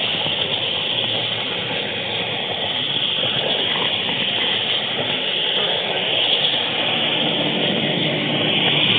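N scale model train running along its track, heard up close from a small camera riding on the train: a steady mechanical running noise with a strong high hiss.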